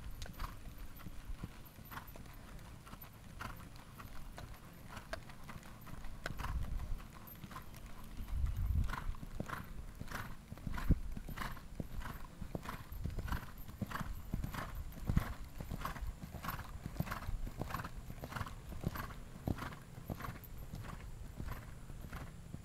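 Hoofbeats of a Gypsy horse trotting on a sand arena: a steady clip-clop of about two to three beats a second, most even and distinct after about nine seconds. A brief low rumble sounds about eight seconds in.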